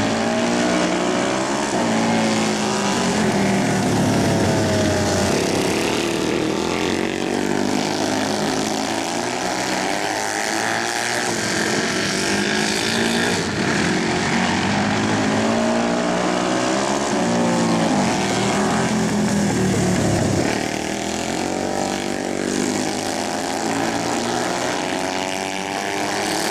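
Flat track racing motorcycle engines running hard around a dirt oval. The engine note rises and falls again and again as the riders accelerate and back off, with two bikes running close together.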